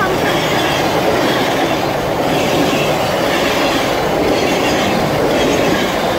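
Union Pacific passenger cars rolling past close to the track: a loud, steady rolling noise of steel wheels on the rails.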